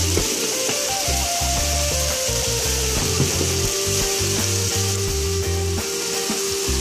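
Ackee and saltfish frying in coconut oil in a frying pan, with a steady sizzle, over background music with a steady bass line.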